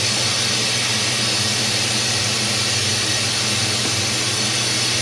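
Air-driven venturi coolant vacuum-fill tool running, a steady hiss of rushing air with a low hum underneath, drawing the Duramax's cooling system down to vacuum before it is refilled with coolant.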